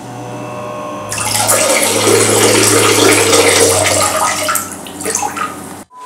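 A loud rushing noise over a low hum. It swells about a second in and cuts off abruptly near the end.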